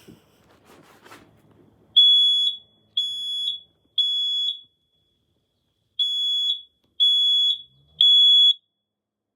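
Kidde 10-year-battery smoke alarm sounding its test: its piezo horn gives a high, steady beep three times, pauses, then beeps three times again, the temporal-3 evacuation pattern. It is preceded by a few handling clicks as the test button is pressed.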